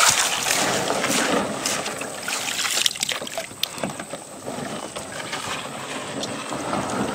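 Water splashing and rippling as a kayak is paddled through shallow river water, with short paddle splashes through a steady watery rush.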